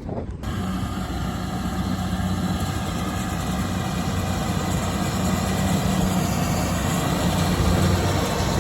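Farm tractor engine running steadily with a low even hum. It cuts in abruptly about half a second in and grows slightly louder.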